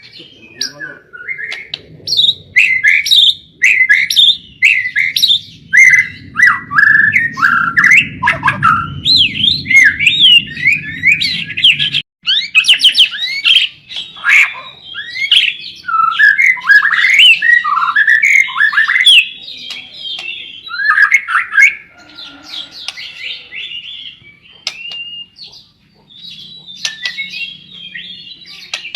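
White-rumped shama (murai batu) singing continuously: rapid, varied whistled phrases sliding up and down in pitch, mixed with sharp clicks and harsher notes. A low hum underneath stops abruptly about twelve seconds in.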